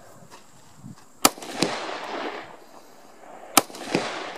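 Two single rifle shots from an M4 carbine firing 5.56 mm rounds, about two and a half seconds apart. Each crack is followed a moment later by a sharp echo and a rolling reverberation.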